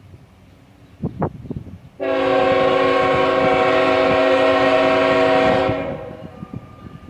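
Train horn sounding one long blast of several notes together, about three and a half seconds, starting about two seconds in and then fading away.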